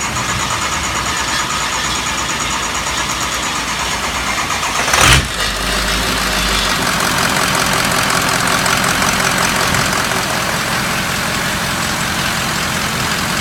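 Ford 6.0 Power Stroke V8 turbo-diesel, swapped into a 1954 F100 panel truck, starting and running at a steady idle. A short, loud burst comes about five seconds in, followed by a deeper rumble for a second or two.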